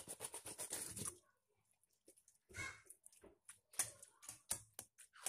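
Gulaman jelly cubes sliding out of a container into a stainless steel bowl, a quick wet rush of patters over the first second. Then a metal spoon knocks and scrapes against the bowl in a string of sharp clicks.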